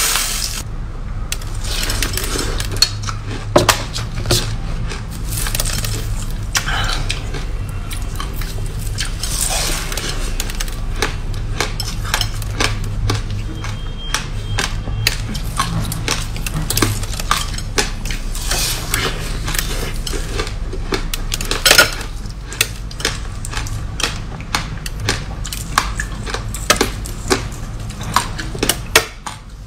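Close-up crunching and chewing of a frozen ice block crusted with white granules: a dense, irregular run of crisp cracks and crackles, with a few sharper snaps, over a steady low hum.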